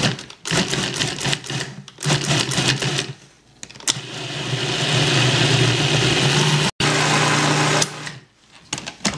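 Cuisinart food processor motor running in two short pulses of about a second each, then steadily for about four seconds, blending green burro bananas with hemp milk toward a smooth purée.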